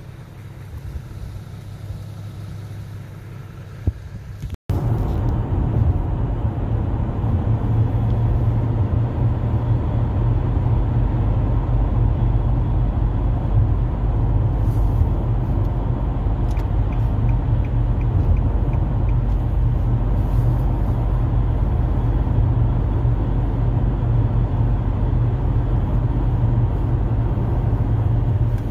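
Car driving, heard from inside the cabin: a steady low rumble of road and engine noise. It starts abruptly about four and a half seconds in, after a few seconds of a quieter low outdoor rumble.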